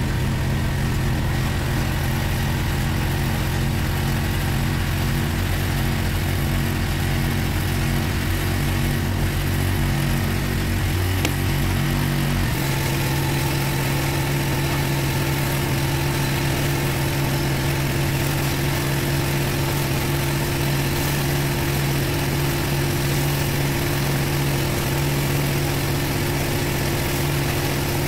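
Engine-driven pressure washer running steadily while a rotary surface cleaner is worked over block paving. Its note shifts about twelve seconds in and then holds steady.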